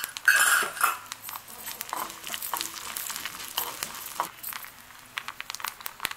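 Mustard seeds and urad dal sizzling in hot sesame oil in a nonstick kadai, a tempering for idli batter, with many small sharp pops and crackles as the mustard seeds burst. The sizzle is loudest in the first second, and a steel spoon scrapes and stirs in the pan.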